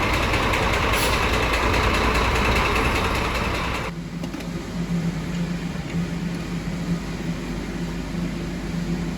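Scania DC13 inline-six diesel engine running for about four seconds, then stopping abruptly, leaving a steady low hum. The engine has been brought in for a knock that the mechanics trace to cylinder five.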